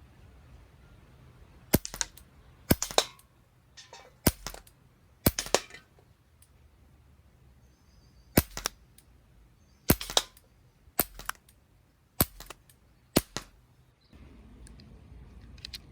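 Umarex Beretta 92 CO2 air pistol firing a string of about nine sharp shots at irregular intervals, some followed by a brief ring.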